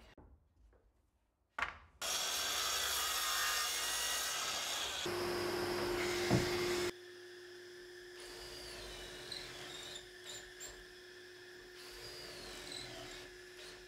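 Cordless drill boring pocket holes into plywood through a pocket-hole jig. A loud run of drilling starts about two seconds in and stops about seven seconds in, then quieter drilling follows over a steady hum.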